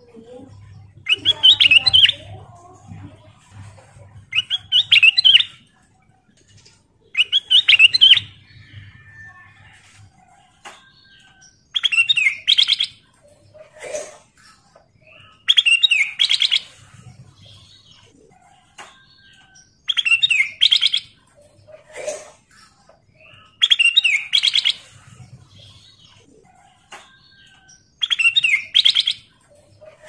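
Ruby-throated bulbul (kutilang emas) singing short, clear, warbled phrases of about a second each, repeated roughly every four seconds, with softer single notes between them.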